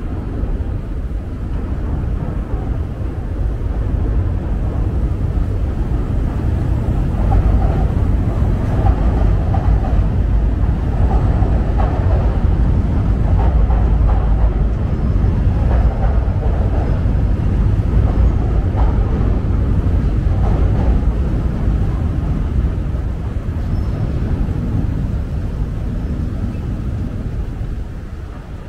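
Chicago 'L' elevated train crossing a steel bridge: a loud low rumble with rhythmic clatter that swells over the first several seconds, holds, then eases off near the end.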